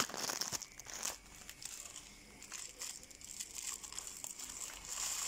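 A sachet crinkling and rustling as it is handled and pulled at, with scattered small clicks.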